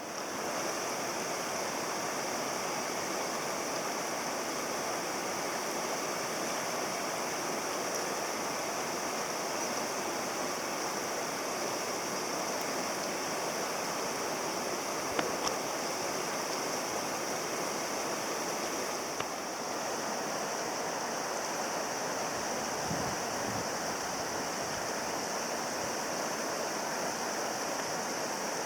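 Steady rush of a flowing mountain stream, with two faint clicks about halfway through.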